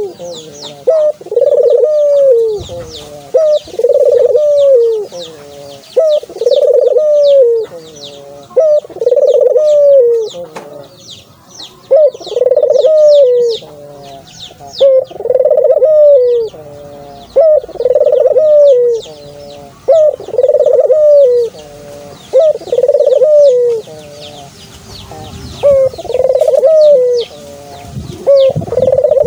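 Puter doves (ringneck doves) cooing repeatedly, one falling coo of about a second every two to three seconds. Short high chirps from small birds run underneath.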